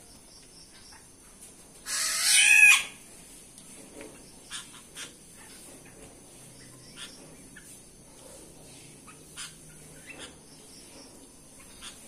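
A bird's loud, harsh squawk lasting under a second, about two seconds in, followed by soft scattered chirps and ticks from caged birds.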